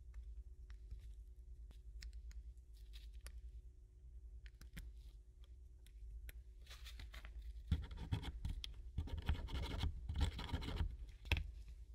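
Scraping and scratching from hand work on a part, with scattered light clicks and taps, then a louder stretch of rasping scraping strokes in the second half and a sharp click near the end. A faint steady hum sits underneath.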